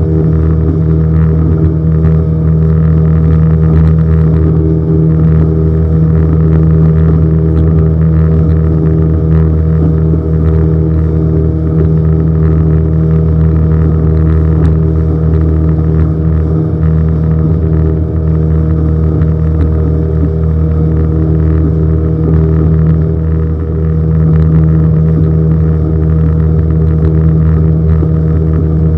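Small fishing boat's engine running steadily, close to the microphone, with an even low drone and no change in speed.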